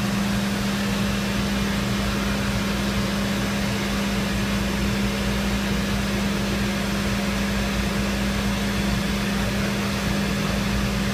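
Mori Seiki SuperMiller 400 milling spindle running steadily at 12,000 RPM: one strong, unchanging tone over an even background hiss.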